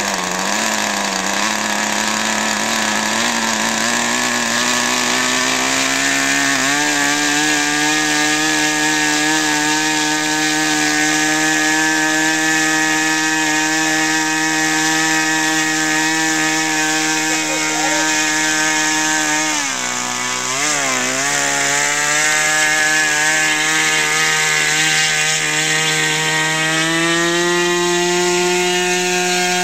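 Small radio-controlled model airplane engine running at high, steady revs. Its pitch climbs over the first several seconds, dips and wavers briefly about two-thirds of the way in, then rises again before falling away at the very end.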